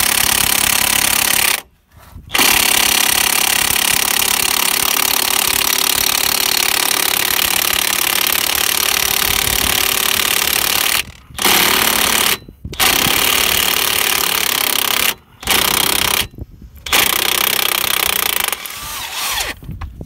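Impact wrench hammering in several bursts that start and cut off sharply, the longest about eight seconds, as it undoes a bolt on the front suspension.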